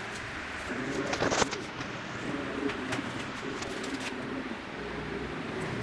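A pigeon cooing, low repeated coos, with a single sharp click about one and a half seconds in.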